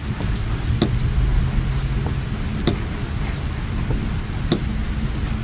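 Car driving in heavy rain: a steady rumble of engine and tyres on the wet road, with rain hissing on the body, and a sharp knock about every two seconds, three times, from the windscreen wipers.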